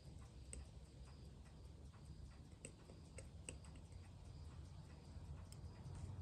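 Faint, scattered light clicks of small watchmaker's tools on a Seiko 6619 watch movement being taken apart, over a steady low hum.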